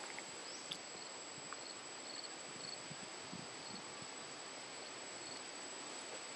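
Insects in the surrounding vegetation: a steady high-pitched drone with faint, evenly repeated chirps beneath it, over quiet outdoor ambience, and one small tick about a second in.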